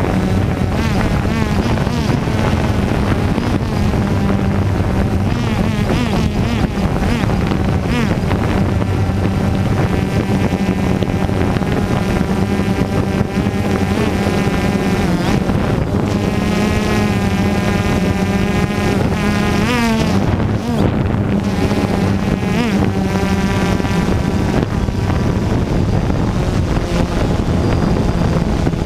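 DJI Phantom 2 quadcopter's electric motors and propellers buzzing steadily in flight, heard from the camera carried on the drone. The pitch rises and falls as the motors change speed, most clearly about two-thirds of the way through with a sharp dip, and there is wind on the microphone.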